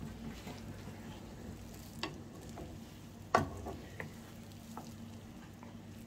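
Finely diced onions cooking gently in melted butter, a faint sizzle while they soften, with a wooden spatula stirring and knocking a few times against the nonstick pan, the loudest knock about three and a half seconds in.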